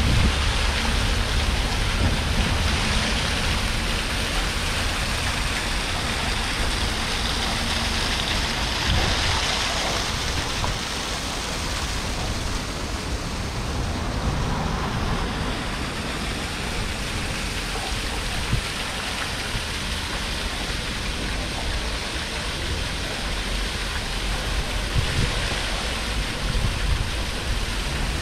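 Water from the Thomas Davis Memorial Fountain splashing into its basin, a steady hiss over a low rumble of city traffic. The splashing fades in the middle and comes back near the end.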